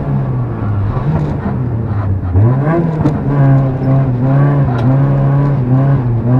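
Rally car engine heard from inside the cabin: the revs fall as the car slows into a bend, then climb sharply about halfway through as it accelerates out, and hold with small rises and dips. A few short knocks sound over it.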